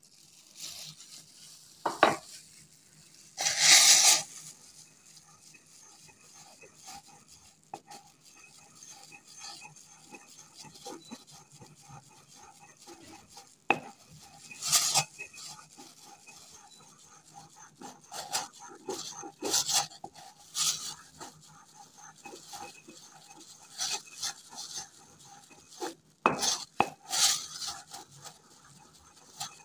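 Pestle grinding and scraping powdered noshadar (ammonium chloride) with mercury in a mortar: irregular grating strokes with a few louder scrapes and knocks.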